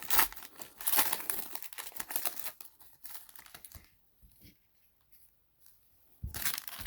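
Crinkling and rustling of plastic trading-card pack wrappers and cards being handled, for about four seconds. A two-second pause follows, then more crinkling near the end.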